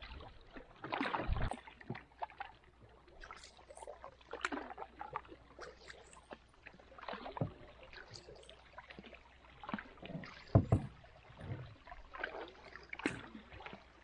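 Canoe paddling: wooden paddle blades dipping and pulling through calm water, with irregular splashes and gurgles at each stroke. One louder thump comes about ten and a half seconds in.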